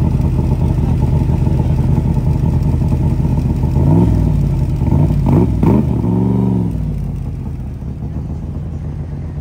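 Shelby Cobra-replica roadster's engine idling through its side exhaust pipes, revved in four short blips between about four and six and a half seconds in; then the car pulls away and the sound fades.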